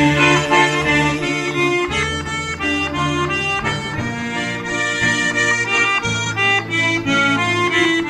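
Piano accordion (sanfona) playing an instrumental break in a gospel song: a moving melody over held bass notes, with no singing.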